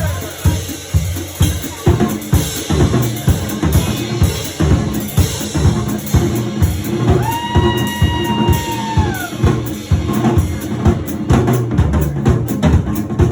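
Live drum kit playing a steady beat with bass drum, snare and rimshots, about two hits a second. About halfway through, a single high note is held for about two seconds and then falls away.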